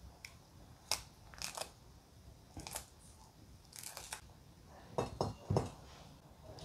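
Ripe avocado skin being peeled by hand from cut pieces: quiet scattered soft ticks and tearing, with a few light knocks about five seconds in as pieces are set down on a ceramic plate.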